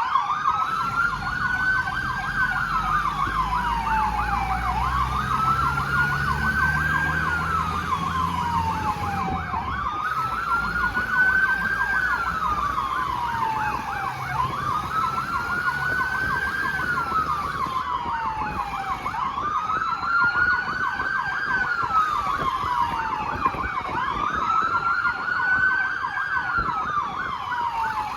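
Fire-response vehicle siren sounding a slow wail that rises for about two seconds and falls for about two and a half, repeating about every five seconds, with a fast yelp warbling over it. A low engine rumble runs underneath for the first ten seconds or so.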